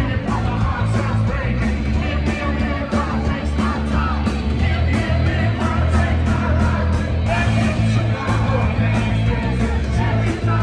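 Rock band playing live and loud: drums, guitar and bass through the PA, with a male singer singing and shouting into the microphone.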